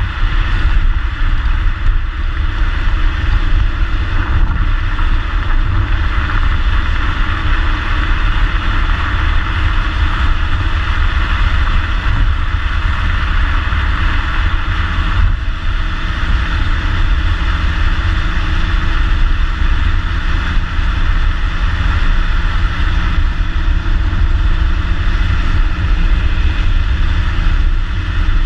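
2014 Ford Mustang's 3.7-litre V6 through its stock exhaust, running steadily while the car is driven, with road and wind noise. A steady low tone joins the drone about halfway through.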